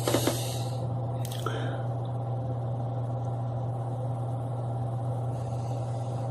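Steady low hum, with brief rustling and a click in the first two seconds.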